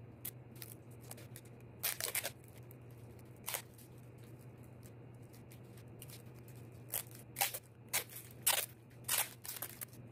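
Wrapping paper and plastic being crinkled and handled, with sharp irregular crackles and snips that come in clusters, thickest in the second half.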